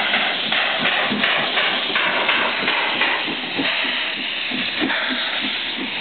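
Px48 narrow-gauge steam locomotive chuffing in a steady rhythm as it passes, with steam hissing. In the second half the chuffs fade and the coaches' wheels knock regularly over the rail joints.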